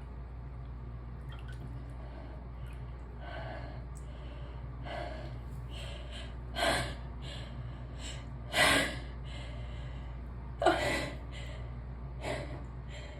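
A person sneezing: gasping in-breaths build up, then come three sudden loud sneezes about two seconds apart and a softer one near the end.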